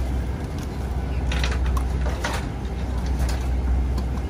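Steady low hum of an airliner cabin, with several short bursts of clicking and rustling in the middle as a pair of over-ear headphones is handled.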